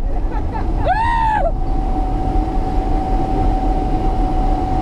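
Car engine and road noise heard from inside the cabin at high speed while overtaking, a steady low rumble with a held engine whine. A passenger whoops once about a second in.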